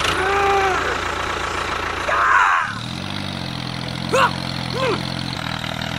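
An engine starts idling almost three seconds in and runs as a steady hum. Before it come short rising-and-falling tones, and two brief chirps sound over the hum near the end.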